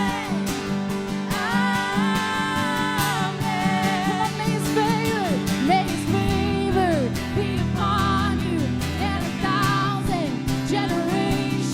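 Worship band music with guitar, bass and a wordless held vocal line.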